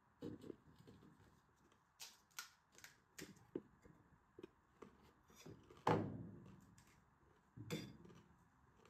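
A metal spoon tapping and scraping in a stainless steel bowl of potato filling as pani puri shells are filled: a string of small clicks and clinks. The loudest is a sharp clank about six seconds in that rings briefly, with another near the end.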